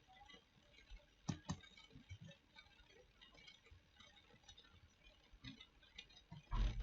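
Quiet room tone with two computer mouse clicks in quick succession about a second in, a few faint ticks, and a dull thump near the end.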